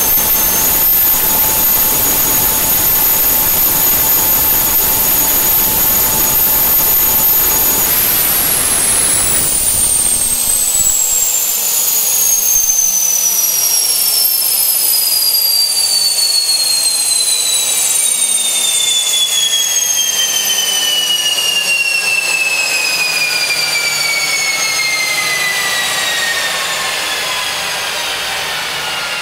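Garrett GTP30-67 gas turbine running steadily at speed with a high whine over a rushing exhaust. About eight seconds in it begins to spool down: the whine falls steadily in pitch, and the rushing noise dies away a few seconds later.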